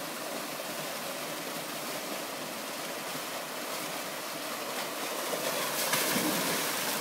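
Waterfall rushing steadily down rock. From about five seconds in it grows louder with splashing as someone comes down the natural rock slide into the water.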